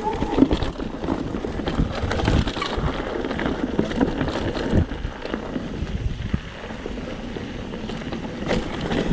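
Mountain bike descending a rough trail: the tyres rumble and the bike rattles with many small knocks, with wind buffeting the microphone.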